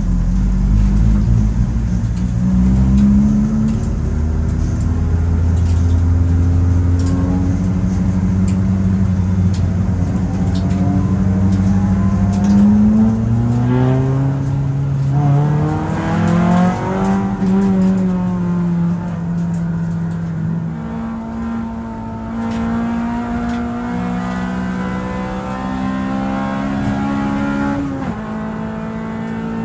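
Honda Civic EK4 race car's B16A four-cylinder VTEC engine at speed on a race track, heard from inside the stripped cabin. The engine revs hard, its pitch climbing and dropping back several times as it goes through the gears.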